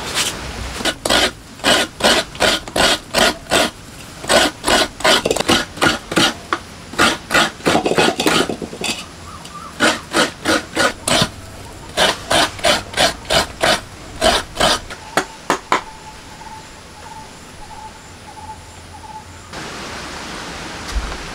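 A coconut half scraped against the serrated metal blade of a hiramanaya, the Sri Lankan wooden coconut-grating stool: quick repeated scraping strokes, about three a second, in runs with short pauses. The strokes stop about 16 seconds in.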